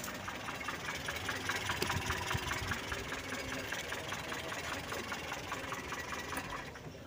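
Mitsubishi Colt T120 petrol engine idling with an even ticking rhythm, its ignition timing freshly set by turning the distributor. It cuts off near the end as the ignition key is turned.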